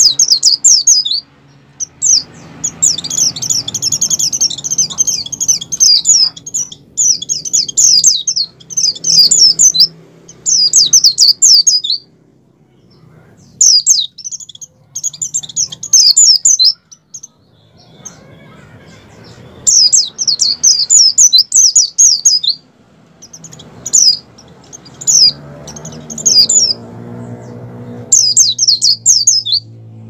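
A white-eye (pleci) in high breeding excitement singing: loud, fast chattering phrases of high, quickly falling notes, each a second or two long, with short pauses between.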